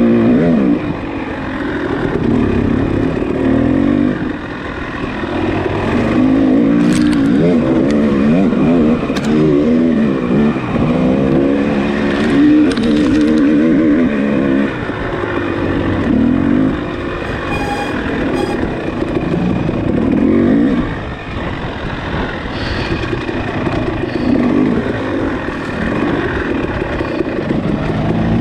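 Dirt bike engine revving hard, its pitch climbing and dropping again and again as the throttle opens and closes, with a few brief dips where it backs off. A few short knocks and clatters break through.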